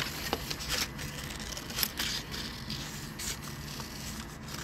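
Scissors cutting painted paper in a series of short, irregular snips, with the paper rustling as it is handled.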